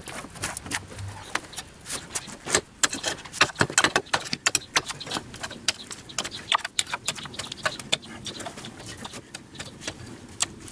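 Stones and gravel clattering and scraping as stony ground is dug and cleared around a pipe, in many quick, irregular clicks and knocks. They are densest a few seconds in and thin out toward the end.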